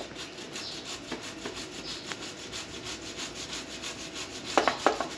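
Potato being grated on a metal box grater: quick, even strokes of the potato rubbing against the grating holes. A few louder knocks come near the end.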